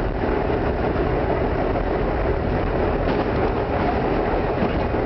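Vintage IRT Lo-V subway train running through a tunnel, heard from inside the car: a steady, loud rumble of wheels on rail and traction motors.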